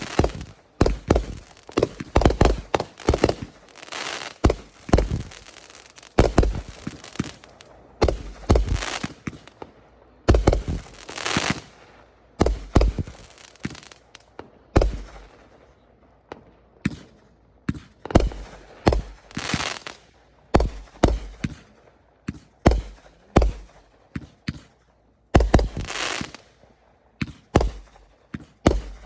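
Fireworks going off: a long irregular string of sharp bangs, some in quick clusters. A few bursts trail into a high crackling hiss lasting about a second.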